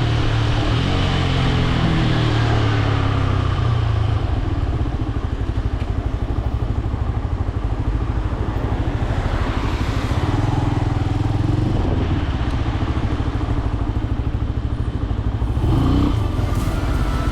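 Benelli BN125 motorcycle's single-cylinder four-stroke engine running under way, with wind rush on the microphone. Engine pitch falls over the first few seconds as the bike slows, then climbs again about ten seconds in.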